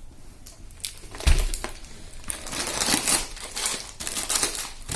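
Food packets being handled, their packaging crinkling and rustling, with a dull thump about a second in as something is set down or picked up.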